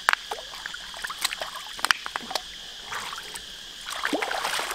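Freshwater mussel shells clicking and knocking as they are picked from the riverbed and dropped into a wicker basket, with water splashing and dribbling from hands in shallow river water, heaviest near the end. A steady insect drone runs underneath.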